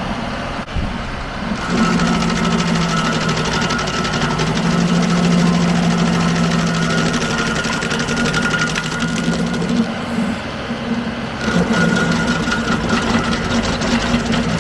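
John Deere 2038R compact tractor's diesel engine running under load while driving a three-point PTO stump grinder, its cutter wheel chattering rapidly as it chews into the stump. The high chatter eases off twice: in the first second or two, and again around ten seconds in.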